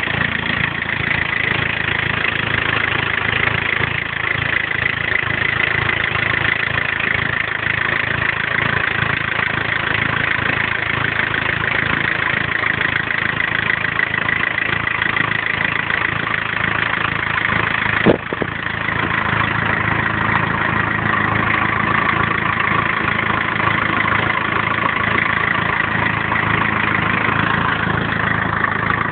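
Turbodiesel 'tds' engine idling steadily, with a clattery drone and a strong high note. A single sharp click about two-thirds of the way through, after which the tone shifts slightly.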